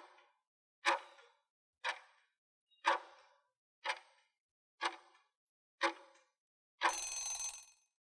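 Countdown timer sound effect: seven sharp ticks, about one a second, then a buzzing ring lasting about a second as the count runs out.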